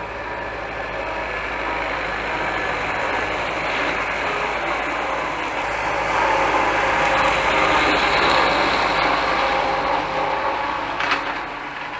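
T-40 tractor's air-cooled diesel engine running with a Wirax rotary mower spinning as it cuts grass. It grows louder as the tractor passes close by, then fades as it moves off.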